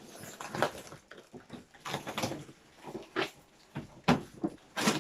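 Cardboard carton and plastic packaging being handled and opened: irregular rustling and crinkling strokes.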